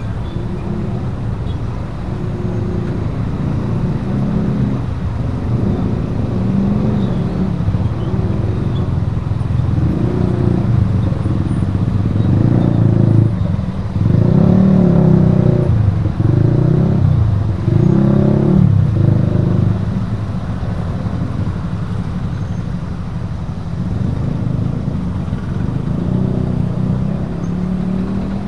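Heavy road traffic of motorcycles, scooters and cars crossing the tracks: many small engines running and revving as they pull away, loudest about halfway through.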